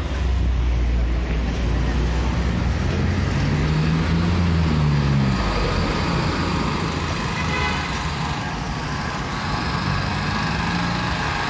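Street traffic passing close by: vans, taxis and a truck running past, with a steady haze of tyre and engine noise. About three seconds in, one engine's pitch rises and then falls as it passes, and another swells near the end.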